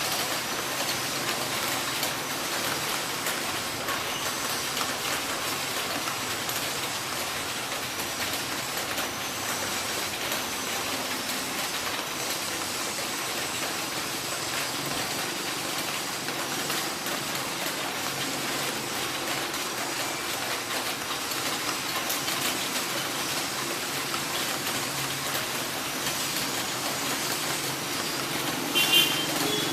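Steady rush of heavy rain. A faint high sound rises and falls every couple of seconds, and a short, loud, high-pitched sound comes just before the end.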